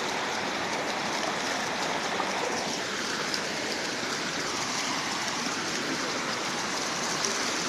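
Waterfall water rushing in a steady, even hiss with no let-up.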